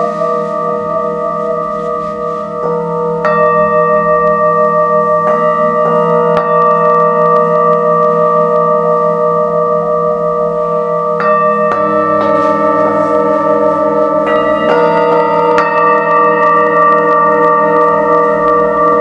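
Singing bowls struck one after another, each strike adding a new tone. The tones ring on and overlap in a wavering, pulsing chord over a low steady hum. The sound grows louder about three seconds in, with more strikes clustered past the middle.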